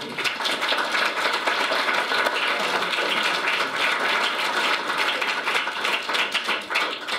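Audience applauding: dense, steady clapping that starts abruptly.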